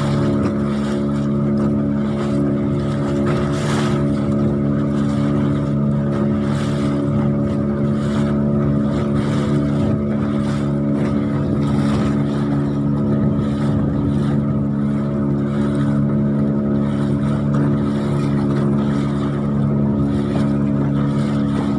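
Small boat's engine running at a steady speed under way, with water splashing along the hull.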